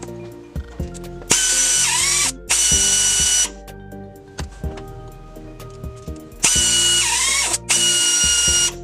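Pneumatic rivet nut gun's air motor running in two pairs of short bursts of hiss and whine, each about a second long. The whine in the first burst of each pair drops in pitch toward its end, as the motor slows under load. Background music plays underneath.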